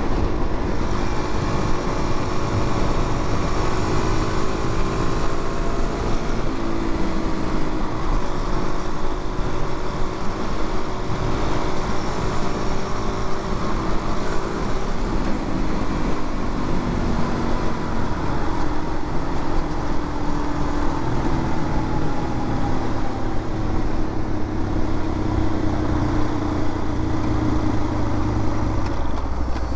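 Suzuki DR-Z400's single-cylinder four-stroke engine running steadily while riding, its pitch drifting gently up and down, under heavy wind and road rush.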